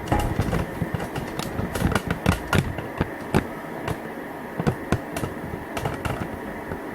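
Close handling noise: irregular clicks, taps and light knocks, several a second at first and thinning out later.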